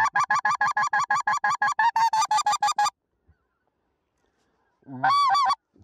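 Hand-held goose call blown in a fast, even run of short honks, about seven or eight a second, for roughly three seconds, then, after a pause, one longer honk that bends up and down in pitch near the end: calling to a flock of geese in flight to bring them in.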